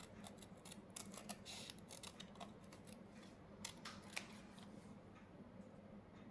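Small scissors snipping around a temporary-tattoo sheet: faint, irregular short snips and clicks that thin out and stop about two-thirds of the way through.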